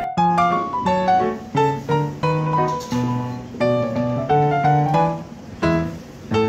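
Background piano music: a steady run of single notes and chords, each struck and then fading.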